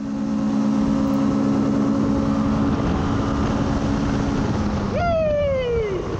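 A paramotor's engine and propeller run steadily at climbing power, over rushing noise. About five seconds in, a strong tone glides sharply downward in pitch over about a second.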